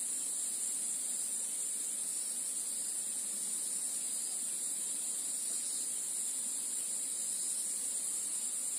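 Steady high-pitched drone of insects, even and unbroken throughout.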